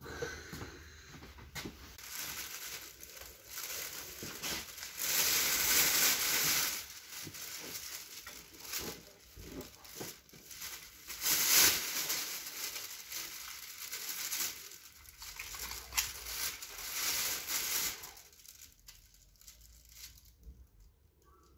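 Thin plastic carrier bag rustling and crinkling as fish are loaded into it, in several louder spells; the rustling dies down about three-quarters of the way through.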